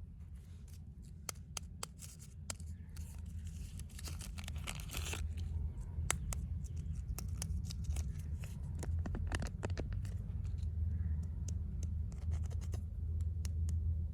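Wood fire in a fireplace crackling: irregular sharp pops and snaps over a steady low rumble of the flames, with a short hiss about four seconds in.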